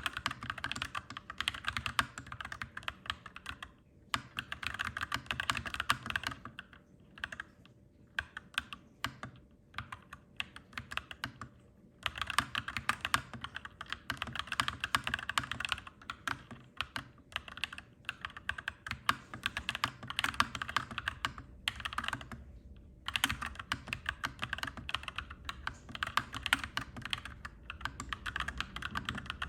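Clacky mechanical keyboard being typed on fast, in runs of rapid keystrokes broken by brief pauses, over a steady low background hum.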